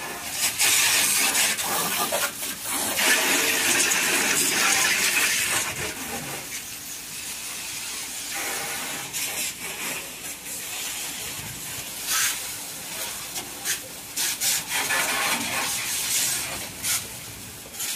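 Water jet from a hose spray nozzle hissing as it washes down a truck's wheel and chassis, loudest for about the first six seconds, then quieter and on and off.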